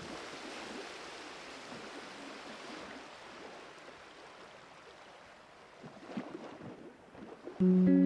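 Steady rushing outdoor noise of wind and surf, easing off slightly midway. Acoustic guitar music comes in near the end.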